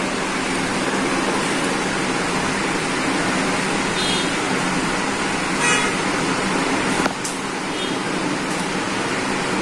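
Steady rushing background noise with no break, with two brief faint tones about four and six seconds in.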